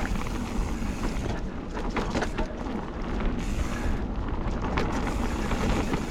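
Mountain bike's knobbly tubeless tyres (Schwalbe Magic Mary front, Hans Dampf rear) rolling over a dirt trail: a steady rumble with scattered clicks and rattles from the bike, plus wind buffeting the action camera's microphone.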